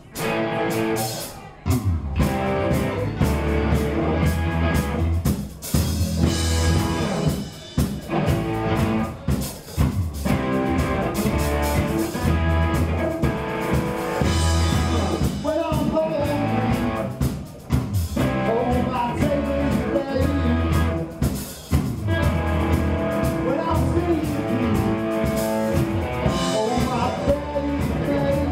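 Live rock band playing electric guitars, bass guitar and drum kit. The full band comes in about two seconds in after a quieter opening moment.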